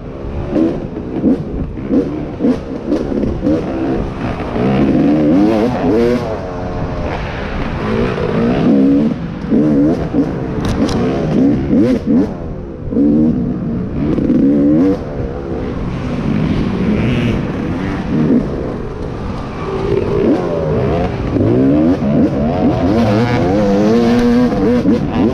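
Off-road racing machine's engine revving hard, its pitch climbing and dropping every second or two through acceleration, shifts and throttle-off.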